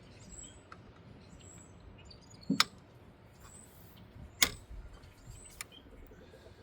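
Two sharp metallic clinks of hand tools, about two seconds apart, during work on the alternator's mounting bolts, with a few faint high chirps in the background.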